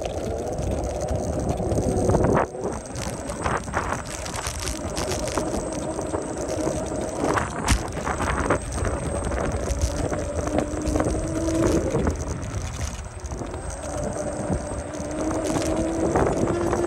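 Segway-Ninebot F40 electric scooter riding over brick paving, rattling and knocking continuously as the wheels cross the pavers. The motor's thin whine rises in pitch twice.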